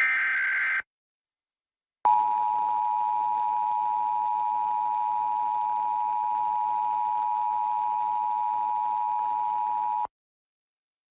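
Emergency Alert System alert: the last short burst of the SAME digital header, a screeching data tone, then after about a second's pause the EAS two-tone attention signal (853 and 960 Hz together) sounds steadily for about eight seconds and cuts off sharply.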